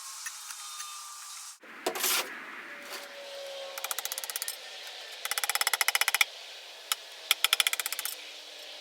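Hand tool worked against a hard surface: a short noisy scrape about two seconds in, then three bursts of rapid ticking strokes, each about a second long.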